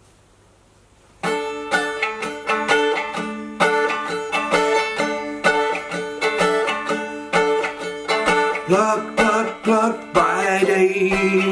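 Acoustic instrumental song intro: plucked strings start about a second in and play a rhythmic picked pattern of ringing notes.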